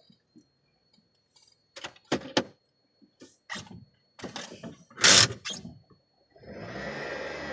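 A string of sharp knocks and clunks from around a car, the loudest about five seconds in, then a steady running noise with a low hum starts near the end.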